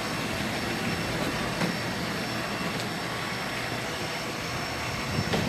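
Steady city street noise: a constant traffic rumble with faint voices underneath.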